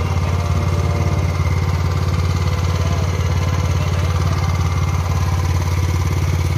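Honda GX270 single-cylinder four-stroke petrol engine running steadily on a test run, with an even, rapid low beat.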